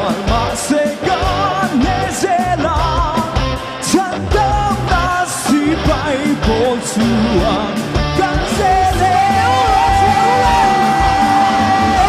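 Live band music with singing into microphones, backed by guitar; near the end a long note is held steady.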